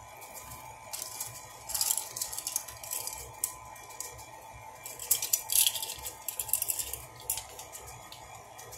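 Kitchen handling noises: a ring of plastic measuring spoons rattling and clicking as it is picked up, and a can of baking powder being handled and its lid opened. These come as scattered short clicks and rustles, busiest about five to seven seconds in.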